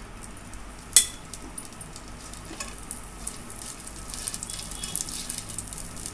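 Whole spices (bay leaves, dry red chillies, cinnamon, cumin) sizzling in hot ghee in a nonstick pot as they are stirred with a silicone spatula: the first frying of the whole spices before the onions go in. A sharp knock about a second in, and the crackle grows busier in the last couple of seconds.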